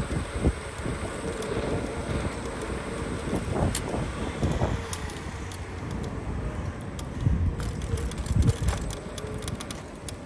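Scooter ride: wind buffeting the microphone over the low rumble of the wheels on the road, with a steady whine underneath and scattered knocks and rattles over bumps.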